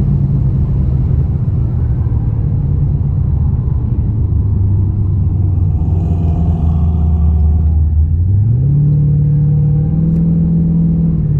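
Holden VX Commodore SS's 5.7-litre LS1 V8 running steadily at low revs. About eight seconds in the revs rise quickly and hold at a higher, steady pitch.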